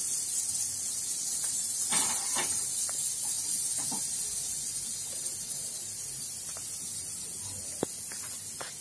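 Oil hissing steadily on a hot tawa as it heats for frying, with a few light knocks of utensils now and then.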